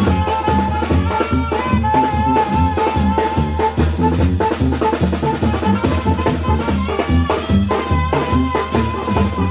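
A live tamborazo brass band playing. Saxophones and trumpet hold long notes over a sousaphone bass line, while a snare drum and a cymbal-topped tambora bass drum keep a steady beat.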